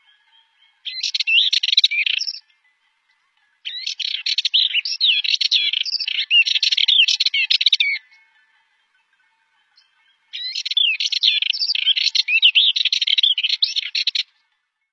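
Sardinian warbler singing: three bursts of rapid, chattering song, the middle one the longest, with short pauses between.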